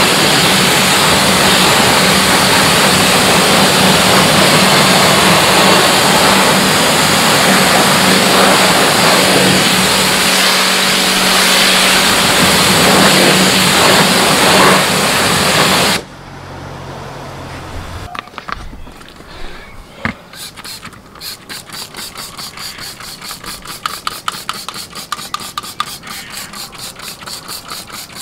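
A motor-driven machine running with a loud, steady rush and a low hum, which cuts off abruptly about halfway through. After that, quieter, fast and evenly spaced ticking with a few sharper clicks.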